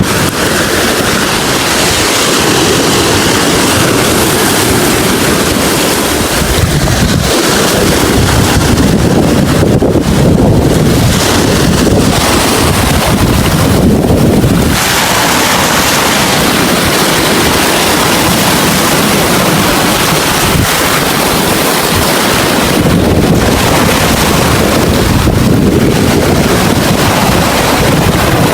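Strong wind blowing across the microphone over rough sea, with waves surging and washing; a loud, steady rush that swells and eases every few seconds.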